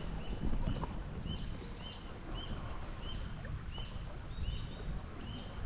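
An animal calling a series of short, arched high notes, about two to three a second, over a steady low rumble.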